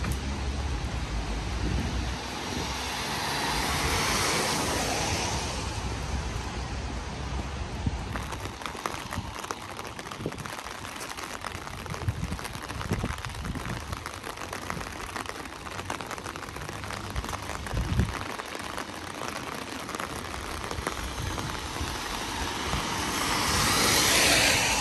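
Steady rain pattering on the street, with two swells of tyre hiss from cars passing on the wet road, one about four seconds in and one near the end.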